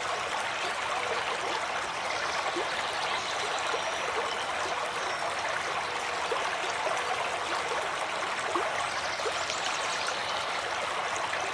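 Steady babbling of running stream water, with a scatter of small trickles and splashes.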